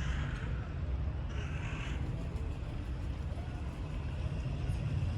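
Steady low outdoor rumble, with a brief higher sound about a second and a half in.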